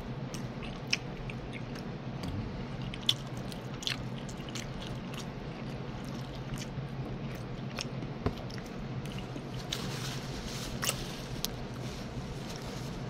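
Close-up eating sounds: biting into and chewing a cheese-sauce-covered chicken wing, with scattered wet mouth clicks and smacks, the sharpest about three seconds in, over a steady low hum.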